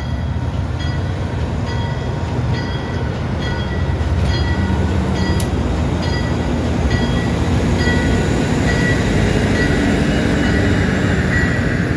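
Diesel locomotive rolling slowly past with its engine rumbling and its bell ringing steadily, about once every three-quarters of a second; a high squeal, typical of brakes as the train comes to a stop, grows in over the last few seconds.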